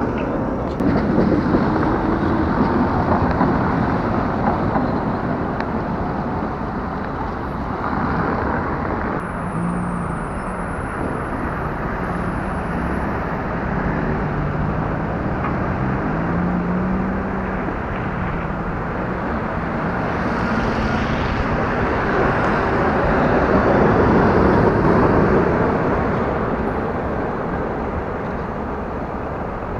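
Street traffic: cars driving past on a city road, one passing loudest a little past two-thirds of the way through, with an engine tone rising and falling in the middle stretch.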